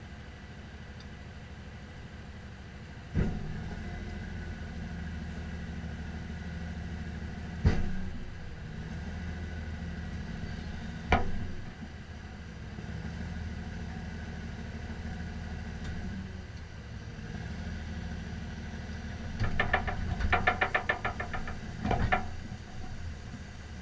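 Tow truck engine idling steadily, its note a little louder after a sharp knock a few seconds in. Two more single knocks follow, then a quick rattling run and one last knock near the end.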